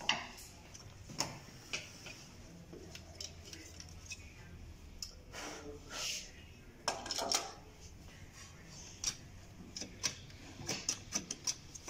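Plastic and sheet-metal parts of a dismantled HP LaserJet 1320 laser printer being handled: scattered clicks, knocks and light clatter, with a quick run of clicks near the end.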